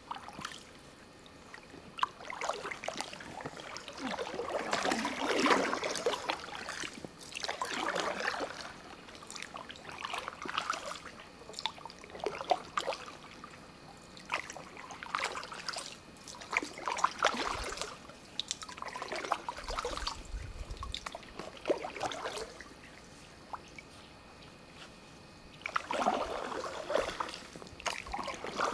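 Canoe paddle strokes in river water: the paddle dipping and pulling through with a splashy swish every two to three seconds, water trickling off the blade between strokes, and a pause shortly before the end.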